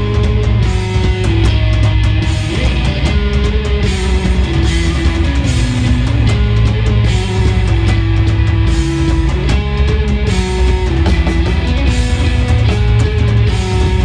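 Live rock band playing an instrumental passage: electric guitar carries a melody of held notes that step up and down, over bass guitar and a drum kit with steady cymbal hits.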